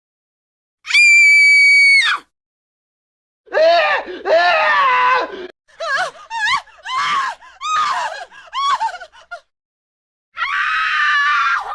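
A string of separate screams and yells played one after another with silent gaps between them: a long high held scream, then longer wavering cries, a run of short yelps, and another held scream near the end.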